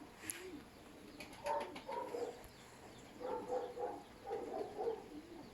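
Domestic pigeons cooing, in three short bouts of wavering calls, after a sharp click near the start.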